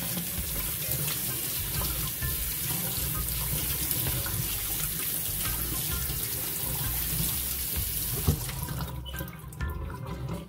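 Tap water running into a stainless steel sink as a yellow yam is rubbed clean under the stream by hand. The water stops near the end.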